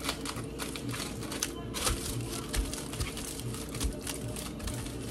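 Aluminium foil wrapped around a breadfruit crinkling and crackling irregularly as hands press and turn it, with a few dull thumps.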